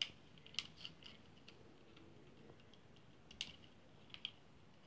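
A handful of faint, sharp clicks and taps of a plastic wall light switch and its wires being handled as the wires are pushed back into its spring terminals; the sharpest click comes right at the start.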